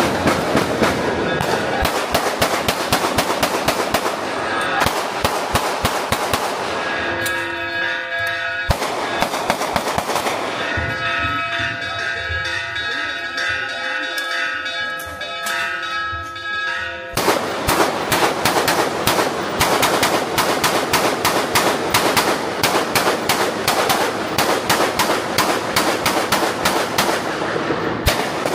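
A rapid, continuous crackle of exploding firecrackers, many bangs a second. The bangs thin out from about seven to seventeen seconds in, where bells ringing come through, and then turn dense again.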